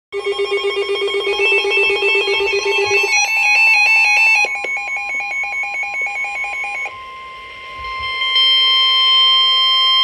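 Emergency alert tones from a weather alert radio. About three seconds of fast electronic beeping change into other rapidly switching beep patterns, and from about seven seconds in the sound becomes a steady high alert tone that precedes a severe thunderstorm warning.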